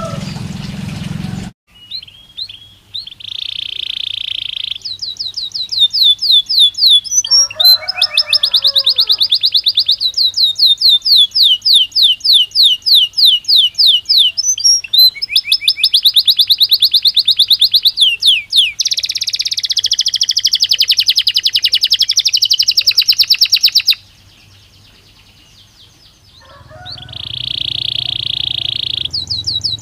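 A Belgian canary singing long runs of rapid trills: fast repeated notes, some rising, with a few held buzzy notes among them. It pauses for about two seconds near the end, then starts again.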